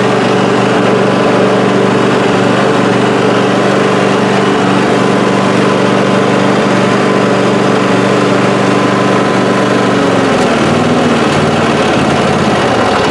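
Cub Cadet LTX1050 lawn tractor's V-twin engine running steadily while the hydrostatic tractor is driven on its test run after a new ground drive belt and transaxle fan. The engine note shifts about ten seconds in.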